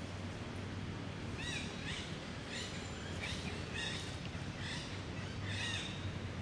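A series of about eight short, high, arched animal calls, repeated roughly every half second, over a steady low hum.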